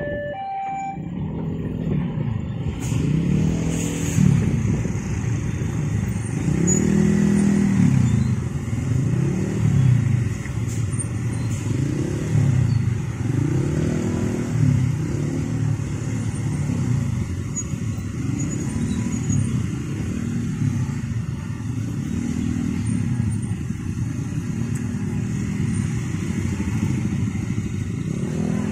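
Many motorcycle and scooter engines idling and revving together, their pitch rising and falling over and over.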